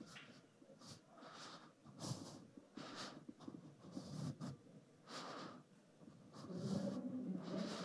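Faint, short hissing rustles and breaths close to the microphone, about one a second at uneven intervals, as the hair is worked with matte styling paste.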